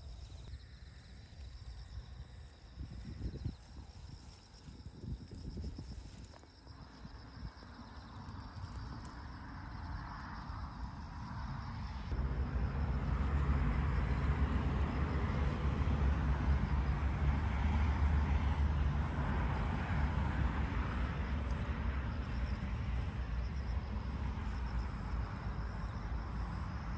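Insects chirping steadily in a field, with a low rumble that comes in about halfway through and stays loud.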